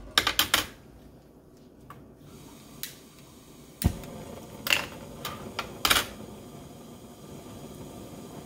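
Metal crucible tongs clink down on the bench. About four seconds in, a Bunsen burner is lit with a handheld lighter: a sharp click with a soft pop, then a few more sharp clicks, and the burner flame hisses steadily from then on.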